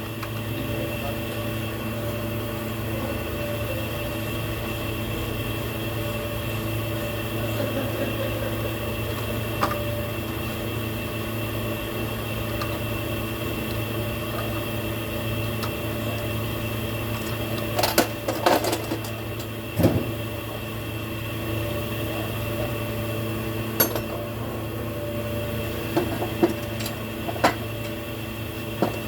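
A steady mechanical hum with several constant tones, with sharp metallic clinks and knocks in a cluster about two-thirds in and a few more near the end.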